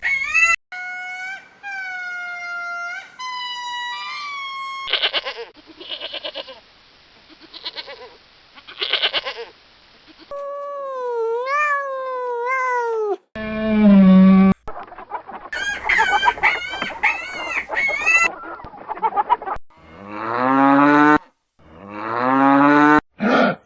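A run of different farm animal calls, each cut off abruptly and followed by the next, chicken calls among them.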